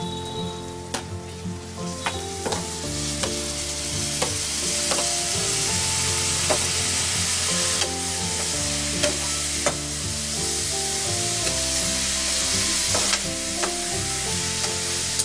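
Chopped tomatoes, onions and green chillies frying in oil in a metal frying pan, with a spatula stirring and scraping against the pan in repeated sharp clicks. The sizzle grows louder a few seconds in as the tomatoes heat up.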